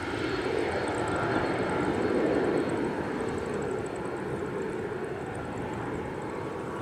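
Learjet 45XR's twin Honeywell TFE731 turbofans at takeoff power as the jet climbs away: a steady rushing jet noise that swells about two seconds in and then slowly eases off.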